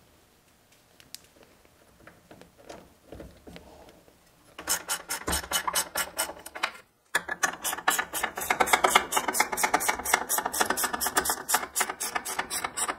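Ratchet wrench clicking quickly and evenly, about seven clicks a second, as the steering box mounting bolts are run in. It starts about four and a half seconds in and stops briefly near seven seconds. Before that there are only a few faint clicks from parts being handled.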